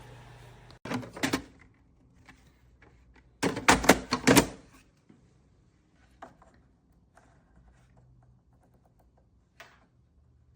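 Clacks and knocks of hard parts being handled on a drip coffee maker: a short burst about a second in and a louder flurry around four seconds, then a few faint ticks.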